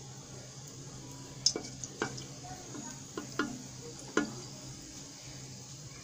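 Whole spices frying in hot oil in an aluminium pressure cooker, a faint sizzle with a handful of sharp clicks and taps scattered through it. A steady low hum runs underneath.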